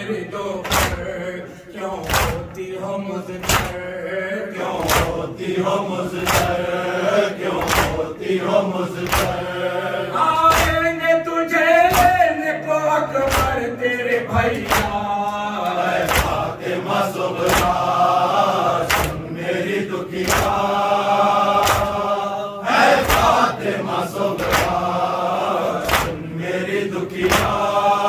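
Men chanting a noha, a mourning lament, in unison behind a lead reciter on a microphone. Steady hand-slaps of chest-beating (matam) keep time, a little more than one strike a second.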